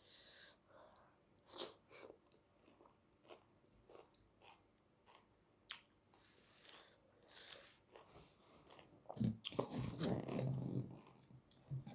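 Close-up chewing and biting of food, with wet mouth smacks and small crunches. It gets louder and busier about three-quarters of the way through.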